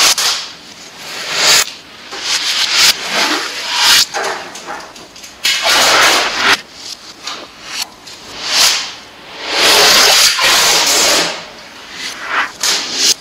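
Orange adhesive tape being pulled off the roll in strips, a series of rasping rips about one a second. Most are short, and one about ten seconds in is drawn out for about a second and a half.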